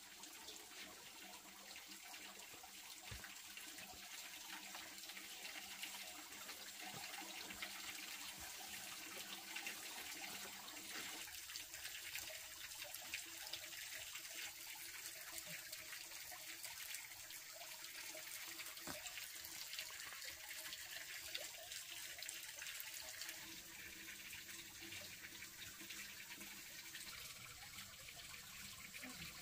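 Water running steadily, like a tap or pipe flowing, with a few small clicks and knocks.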